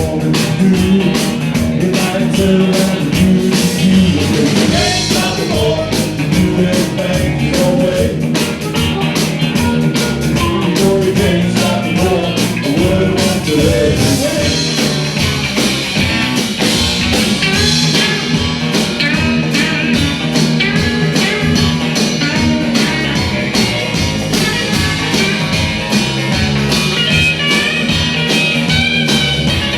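Live band playing a rock-and-roll number with a steady, driving beat.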